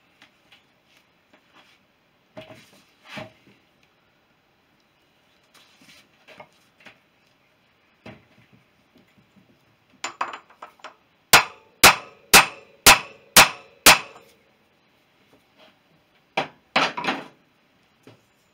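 Hammer blows on a socket used as a drift, tapping a new sealed ball bearing into a motorcycle wheel hub; metal-on-metal clanks. A few light taps come first, then six sharp, evenly spaced blows about two a second, and a last short cluster of knocks near the end.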